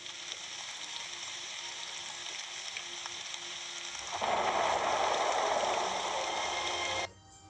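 Rain falling steadily, joined about four seconds in by a louder rumble of thunder; both cut off suddenly near the end.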